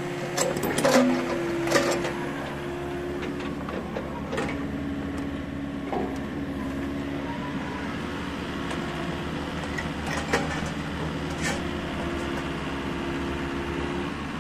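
Komatsu PC40MR-2 compact excavator running under hydraulic load, a steady engine and pump drone whose pitch shifts as the swing and boom are worked. Several sharp clanks are scattered through it.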